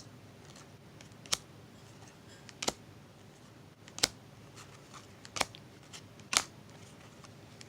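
Paper trading cards being handled one at a time, each giving a short, sharp snap. There are five snaps, about one every 1.3 seconds.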